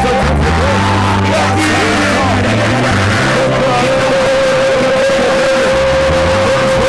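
Live worship music: a band with a stepping bass line, voices singing and calling out over it, and one long held note from about three and a half seconds in.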